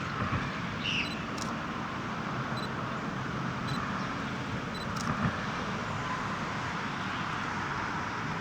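Steady distant road traffic noise, with a couple of sharp clicks and a short chirp about a second in.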